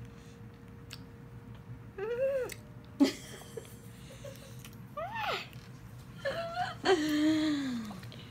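A young girl's whimpering cries, short squeals that rise and fall at about two, five and six seconds in, then a longer falling moan near the end, her reaction to the intense sourness of a sour candy in her mouth. A sharp click about three seconds in is the loudest moment.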